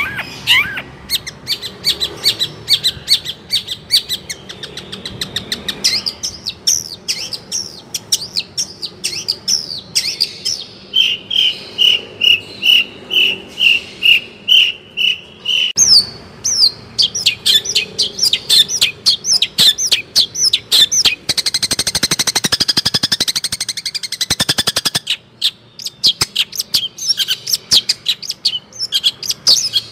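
Long-tailed shrike (cendet) in full continuous song, a rapid string of varied chirps and trills. About eleven seconds in it repeats one clear note about twice a second for several seconds, and a little past twenty seconds it gives a harsh, rasping rattle before returning to quick chirps.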